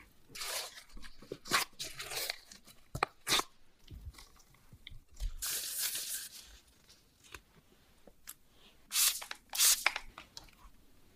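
Food-preparation handling sounds: a spatula scraping and stirring powder into liquid in a glass bowl, then the rustle of gloved hands working and dividing dough. Near the end come two short hissing bursts of a spray bottle misting white wine over salted egg yolks.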